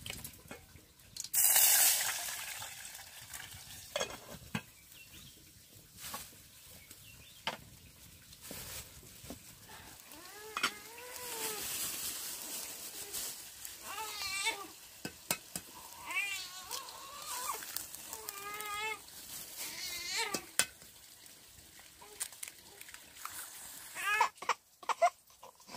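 Food frying in a pan, with a loud burst of sizzling about a second in and a utensil clicking and knocking as it is stirred. Several short wavering voice-like calls come in the second half.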